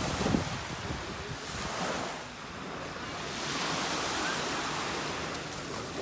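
Small waves breaking and washing up the beach, the surf swelling about two seconds in and again past the middle. There is some wind rumble on the microphone in the first second.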